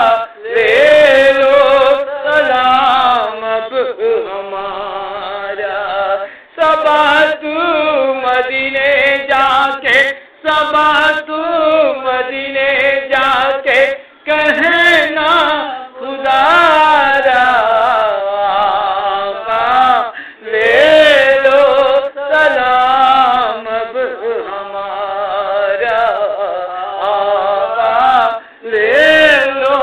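A man chanting a devotional Urdu salam: long sung phrases with held, wavering notes, broken by short pauses for breath.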